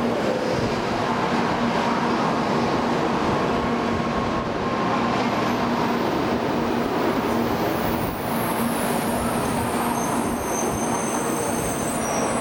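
N700 series Shinkansen train rolling slowly into a station: a steady rumble with a low hum as the cars pass. High-pitched squealing sets in about halfway through as the train brakes to a stop.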